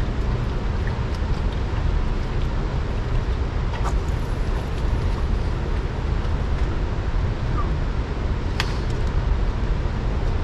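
Wind buffeting the microphone, a steady low rumble, with two faint clicks, about four seconds in and again near nine seconds.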